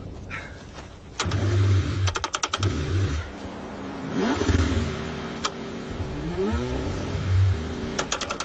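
Car engine cranking in freezing cold and struggling to start, with uneven surges of engine noise and a run of rapid clicks. The pitch rises and falls a few times as the engine strains.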